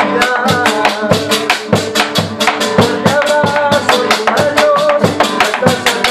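Argentine folk music played live: a man sings over a strummed acoustic guitar, with a bombo legüero beaten with sticks and a güiro scraped in a quick, even rhythm.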